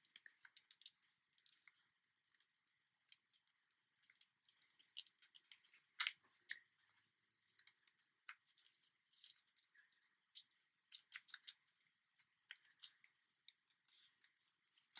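Faint, scattered crackles and crinkles of origami paper being folded and creased between the fingers, the loudest about six seconds in.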